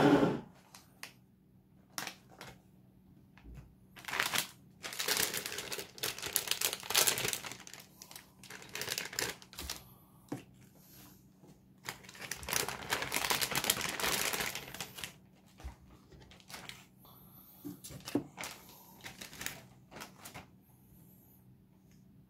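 Crinkling and rustling of something being handled, in two long stretches, with scattered clicks and light knocks in between.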